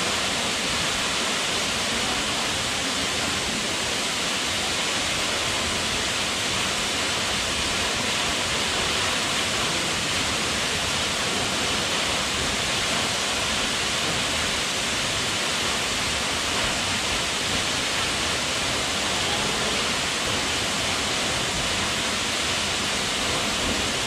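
A tall waterfall plunging into its rock pool: a steady, even rush of falling water, with a hissing edge and no breaks or changes.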